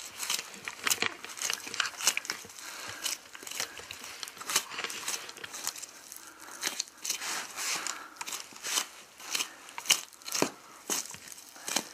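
Knife cutting and pulling through meat and connective tissue on a deer carcass as the shoulder blade is taken off: irregular crackling and tearing with sharper clicks, one louder snap near the end.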